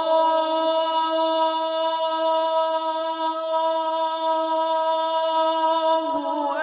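Opening of a devotional song: one long, steady held note with a chant-like quality. It shifts to a new pitch near the end.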